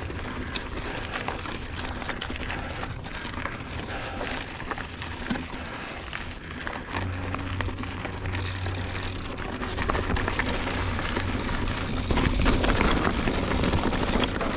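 Motobecane HAL Boost Eagle mountain bike rolling over rocky, gravelly singletrack: a steady rush of tyre noise full of crunching and clicking stones and rattles. A low steady hum joins about seven seconds in, and the clatter grows louder and denser near the end.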